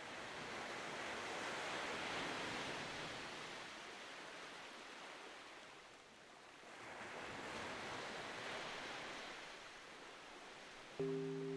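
A soft rushing ambience that swells and fades twice, like wind or surf. Near the end a low sustained musical chord comes in suddenly.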